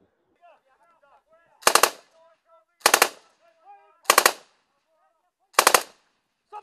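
Four short bursts of automatic gunfire, close and loud, each of three or four rounds, coming about every second and a half. Faint distant shouting between the bursts.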